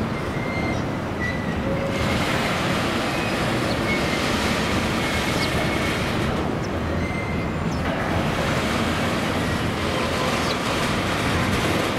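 Container wagons of a long freight train rolling past on steel rails: a steady rumble of wheels on track, with a few brief high wheel squeaks in the first half.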